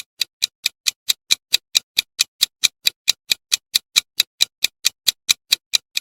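Countdown-timer sound effect: an even clock ticking, about five sharp ticks a second.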